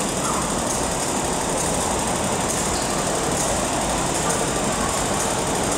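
Siemens ER20 diesel-electric locomotive running steadily as it approaches through the station, an even engine and rail noise with no sharp events.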